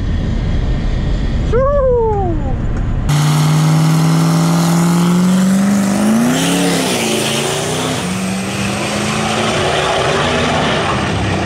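A Duramax V8 turbodiesel race truck accelerating hard down a drag strip. Its deep engine note comes in suddenly about three seconds in and climbs slowly in pitch, with short dips, and a high steady whistle joins it. Before that there is a low rumble from inside the Tesla Model S Plaid as it launches.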